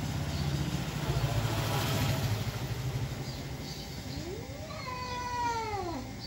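Two cats squaring off to fight: a low pulsing growl for the first three seconds or so, then one long yowl that rises and falls in pitch from about four seconds in.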